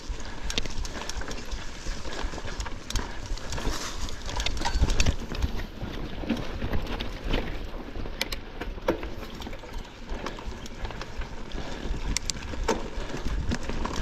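Mountain bike rattling and clattering over a rough trail, with irregular sharp knocks over a steady rushing noise and a low rumble.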